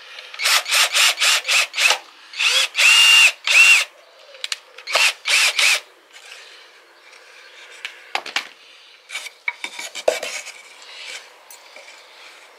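Quick back-and-forth scraping strokes in three runs in the first six seconds, the middle run of longer strokes carrying a high squeak. Fainter scattered clicks and scrapes follow.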